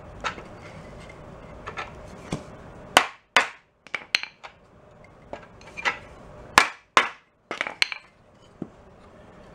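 Hammer blows on a bent steel bracket of a Honda CT70 frame, flattening it: a run of irregular sharp knocks. The hardest come about three seconds in and again around six to seven seconds in.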